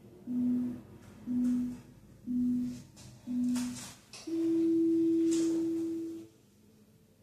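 Workout interval timer beeping: four short low beeps about a second apart, then one long, slightly higher beep, the countdown that marks the end of an exercise interval. Faint shoe scuffs on the floor underneath.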